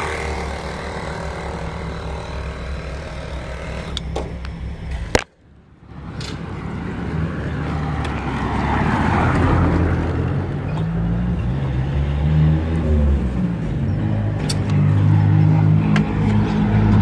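A motor running with a steady low hum. It cuts out suddenly about five seconds in, returns about a second later, and grows louder toward the end.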